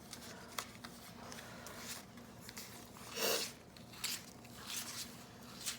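Quiet room tone with a faint steady hum and a few small clicks, and a brief soft breathy sound about three seconds in.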